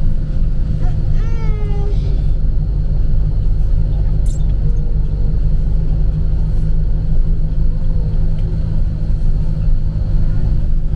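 Steady low rumble of engine and road noise heard from inside a moving road vehicle. A little past a second in, a short higher-pitched sound falls in pitch over the rumble.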